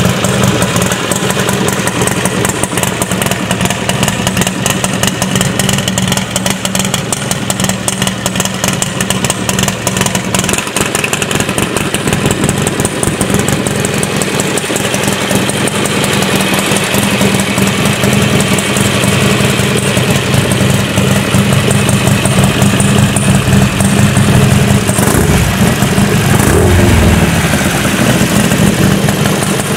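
Harley-Davidson Sportster Roadster's air-cooled V-twin, built to 1275cc with a Hammer Performance kit, idling steadily through a Cobra El Diablo 2-into-1 exhaust.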